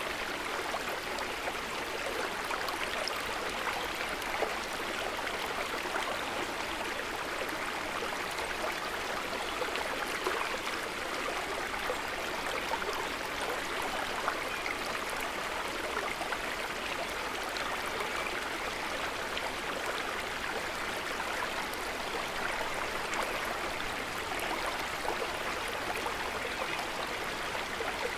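Stream or river water running steadily over rocks, a continuous rushing with fine splashing and gurgling detail.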